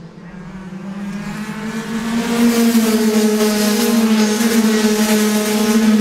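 Several Rotax 125 cc two-stroke kart engines racing at high revs. The note grows louder over the first two seconds and rises slightly in pitch as the pack accelerates, then holds steady and loud.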